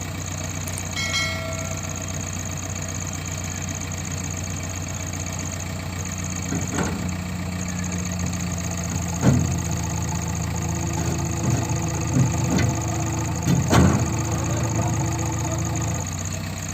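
Diesel engine of a JCB 3DX backhoe loader running, its revs raised from about six seconds in and dropping back near the end, with several sharp metallic clunks during the raised stretch.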